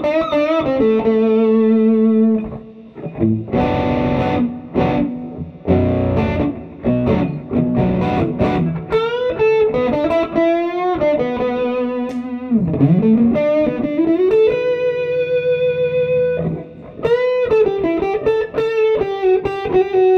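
Oscar Schmidt OS 50 electric guitar played through a Fender Mustang LT25 modeling amp on its 'Heavy Blues' factory preset, an overdriven tone. A few strummed chords come in the first half; the rest is single-note blues lines with string bends and vibrato.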